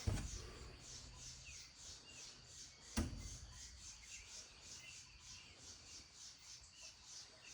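Steady, rhythmic high-pitched chirping, about three chirps a second, with one sharp knock about three seconds in.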